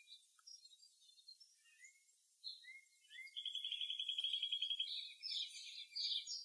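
Songbirds calling: scattered high chirps and short rising notes, then a fast, even trill lasting a second and a half or so in the middle, followed by more chirping near the end.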